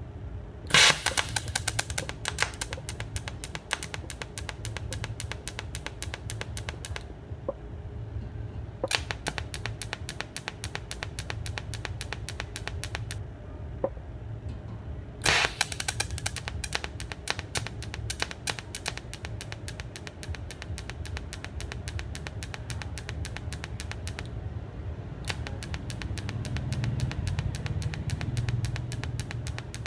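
TIG welding arc driven by a pulse box, giving a rapid, even clicking pulse over a low electrical hum. The arc is struck and broken off four times: it starts with a sharp crack just under a second in and stops and restarts three times.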